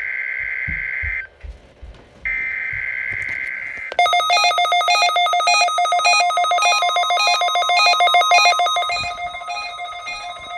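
NOAA Weather Radio SAME digital header bursts: two steady buzzing data bursts about a second and a half each, a second apart, marking the start of a required weekly test. About four seconds in, a loud electronic alert tone starts, trilling in fast pulses and getting quieter toward the end.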